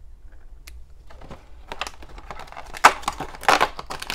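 Blind-box toy packaging being handled and opened: faint crackling starts about a second in and grows denser, with a sharp crack near three seconds and louder crinkling after it.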